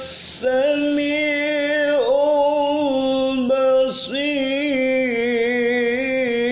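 A man's voice reciting the Quran in a slow melodic style (tilawah). He holds long drawn-out notes with ornamented turns in pitch, and breaks off briefly twice, at the start and about four seconds in.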